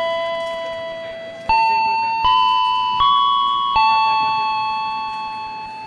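A slow melody of bell-like electronic chime notes. The notes are struck roughly every three-quarters of a second, with two long held notes, and each rings and fades before the next.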